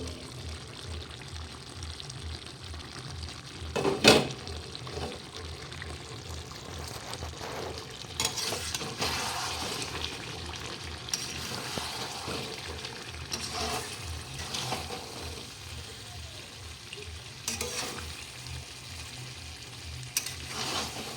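Chicken and potato pieces sizzling in oil in a pan while being stirred with a spatula, with a few sharp knocks of the spatula against the pan, the loudest about four seconds in. This is the kosha stage, slow-frying the meat until it releases its oil.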